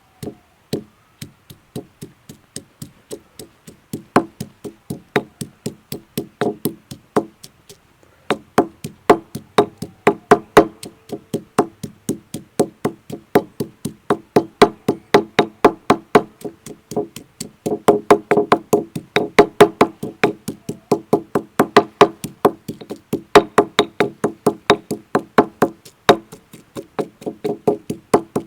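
Garlic cloves being pounded and smashed: a steady run of sharp knocks, about three to four a second. They are softer for the first few seconds, stop briefly about eight seconds in, and grow louder in the second half.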